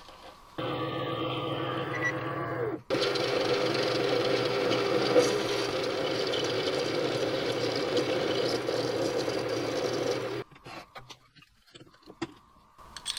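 Small benchtop metal lathe running steadily while its cutting tool turns down a 3D-printed 316L stainless steel test bar, with a short break about three seconds in. The lathe stops about ten seconds in, and a few faint clicks follow.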